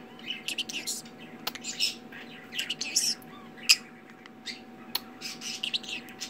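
Green-cheeked conure chirping and squawking in short bursts, with three sharp kissing smacks among the chirps as it gives kisses.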